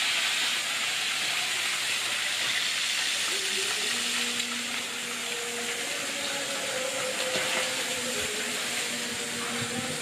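Chicken pieces frying in hot oil in a pan, a steady sizzle, slightly quieter after about four seconds.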